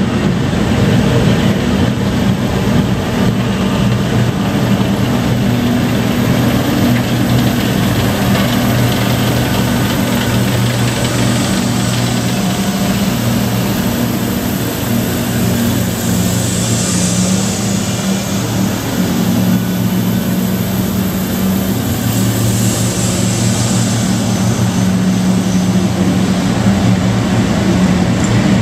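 A column of main battle tanks driving past, their engines running loudly and steadily with a deep rumble; the sound swells twice, about two-thirds of the way through, as tanks draw level.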